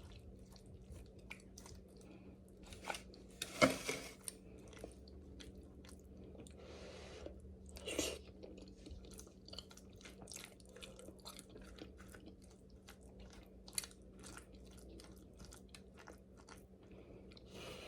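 Quiet close-up chewing of king crab legs, with many small clicks and crackles of shell being handled and two louder sharp snaps, about four and eight seconds in. A low steady hum sits underneath.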